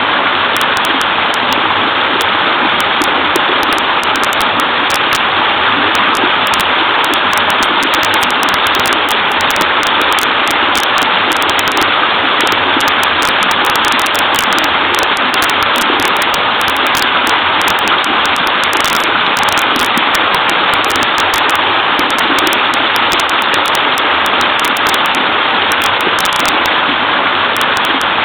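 Small waterfall spilling into a creek: a loud, steady, unbroken rush and babble of water.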